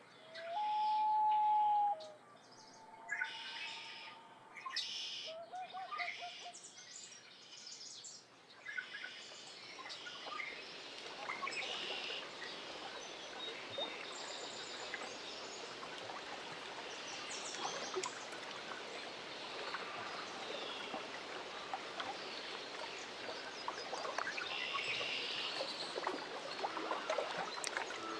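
Lakeside nature ambience: a loud, long, held bird call right at the start, a few fainter calls and small birds chirping, then from about eight seconds in a steady wash of water lapping at the shore with birds calling over it.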